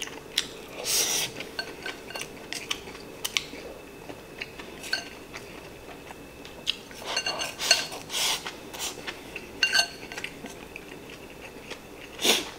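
Chopsticks clicking and scraping against a ceramic donburi bowl while eating, many light ringing taps with a few louder scooping scrapes, the loudest near the end.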